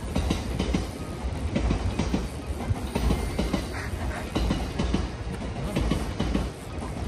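Spinning reel being cranked, reeling in a hooked fish that seems large: a rapid, irregular clicking over a steady low rumble.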